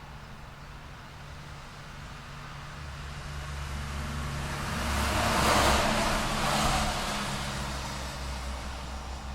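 City street traffic: a low, steady engine hum underneath while a vehicle passes close by, its tyre and engine noise swelling to a peak a little past the middle and fading away again.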